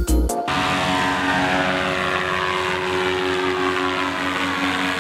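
Electronic music with a beat cuts off about half a second in, giving way to a paramotor's propeller engine droning steadily, its pitch sinking slightly as it passes.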